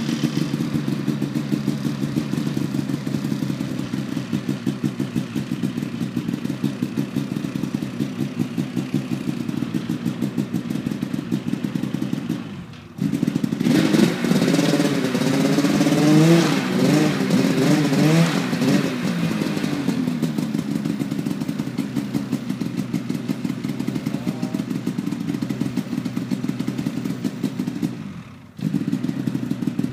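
Polaris Pro RMK 800 snowmobile's two-stroke engine idling with a fast, even pulsing. It is revved up and down from about 13 to 20 seconds, then settles back to idle. The sound drops out sharply for a moment twice, about 13 seconds in and near the end.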